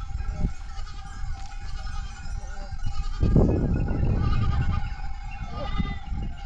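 Goats and sheep of a flock bleating now and then. A heavy low rumble sets in about three seconds in.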